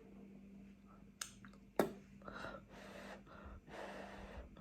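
Eating sounds: two sharp clicks, then several breathy, noisy in-and-out breaths and slurps while eating very spicy noodles.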